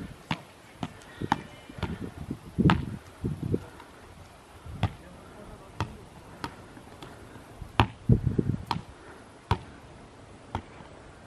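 A football being juggled in keepy-ups off the feet, knee and head: a string of sharp taps, irregularly spaced about every half second to a second.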